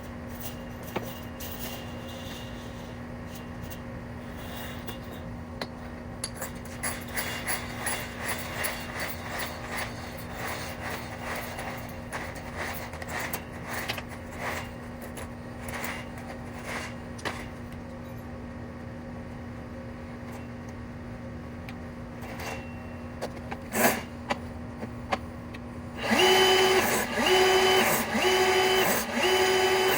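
Power tool running under a steady hum, its working parts clicking and rattling irregularly, on a sewer-clearing job, most likely a motorized drain-cleaning machine and its cable. About four seconds from the end a louder motor whine takes over, cutting in and out in short pulses roughly once every 0.7 seconds.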